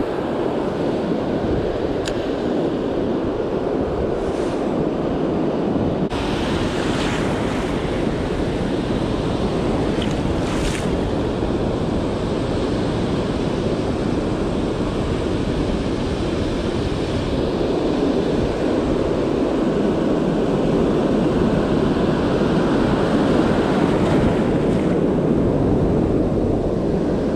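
Ocean surf washing and breaking in the shallows, a steady rush of water with wind buffeting the microphone. It grows slightly louder in the last few seconds.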